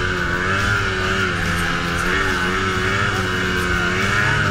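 Snowmobile engine running at speed, its pitch wavering slightly with the throttle.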